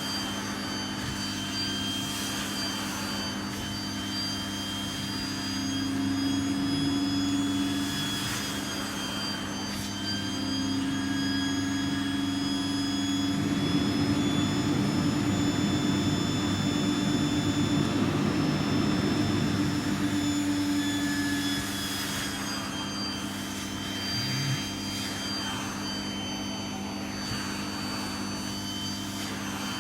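Vacuum cleaner running steadily: a continuous motor drone with a high whine. For several seconds in the middle it grows louder and rougher, then settles back to the steady drone.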